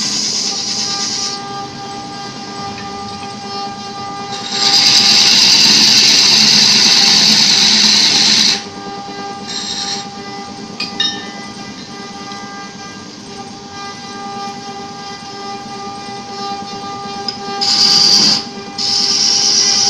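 Belt-driven wood lathe running with a steady motor hum, while a hand gouge cuts into the spinning wooden workpiece with a loud, high scraping noise: one long cut from about 5 to 8.5 seconds in, and more cutting near the end.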